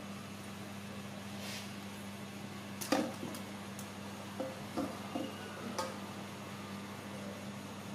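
Small handling knocks and taps on a tabletop as a baby's plastic feeding bottle is set down, with a sharp click about three seconds in and a few lighter knocks over the next few seconds. A steady low hum runs underneath.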